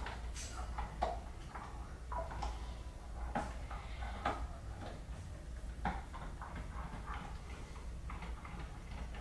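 Faint, irregular light taps and clicks over a steady low hum.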